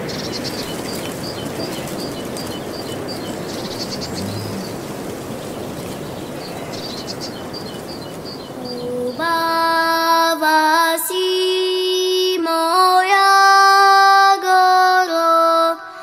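A small bird calling in two runs of quick, evenly repeated high notes over a steady outdoor rustling noise. About nine seconds in, a song begins: a high singing voice holding long notes with short glides between them.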